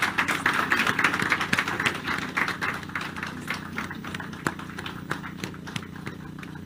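A small audience clapping, a thick burst of applause in the first few seconds that thins out to scattered claps, over a steady low hum.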